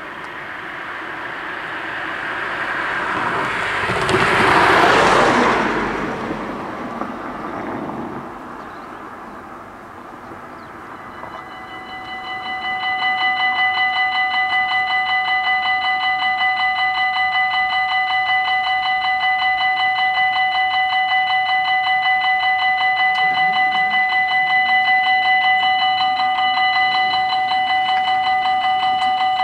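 A car drives past, loudest about five seconds in. About eleven seconds in, the level crossing's electronic warning bells start and ring on steadily with a rapid, high pulsing ring. They warn that the crossing is closing for an approaching train.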